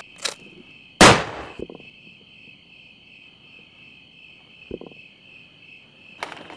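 Crickets chirping in a steady high drone, broken by one sharp, loud bang about a second in, followed by a couple of fainter knocks later on.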